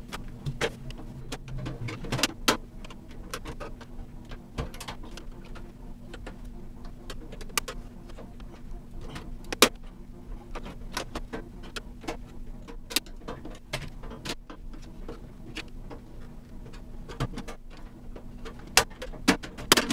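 Irregular clicks, knocks and light clatter of plastic and sheet-metal parts being handled and pulled out of a desktop computer tower during disassembly, with a steady low hum underneath.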